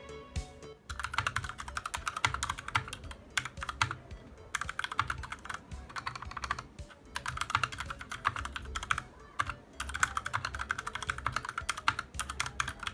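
Typing on an AKKO 3061 Neon mechanical keyboard: fast runs of key clicks lasting a second or a few seconds each, separated by short pauses.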